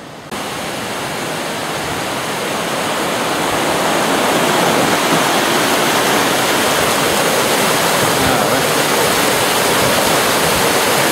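A small waterfall pouring out of a tunnel under a stone wall and splashing down a rocky channel: a steady rushing of water that starts abruptly and grows louder over the first few seconds, then holds.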